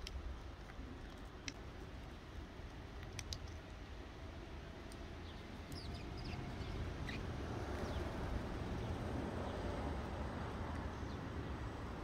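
Outdoor background with a steady low rumble, a few sharp clicks and a few brief high bird chirps; a hiss like passing traffic swells from about six seconds in.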